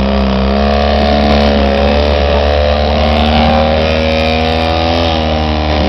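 Citroën 2CV's air-cooled flat-twin engine held at high, steady revs as the car ploughs through deep mud, the note rising a little in the first second and sagging slightly near the end.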